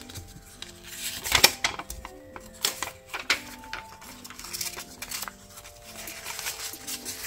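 Paper rustling and crackling as a folded quick-start leaflet is opened out and handled, with a few sharp crackles in the first half, over soft background music.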